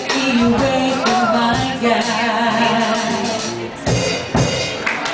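A woman singing lead with a live band and drum kit; about halfway through she holds a long note with vibrato.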